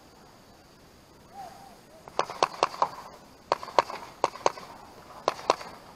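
Paintball markers firing: a quick string of four shots about two seconds in, followed by pairs of sharp pops about a second apart.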